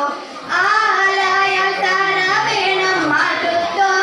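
A Thiruvathira song sung by young female voices in long held, gently wavering notes. The singing breaks off briefly at the very start, then the next line comes in.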